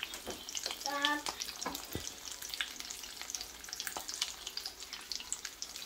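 Slices of luncheon meat sizzling and crackling in hot oil in a frying pan, a steady dense spatter of small pops.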